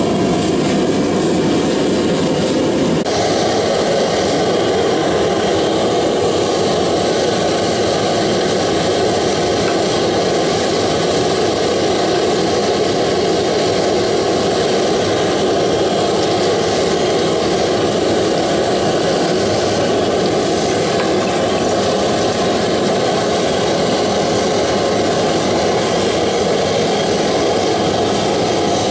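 Propane gas forge burner running, a loud, steady rush of burning gas. Its tone shifts slightly about three seconds in.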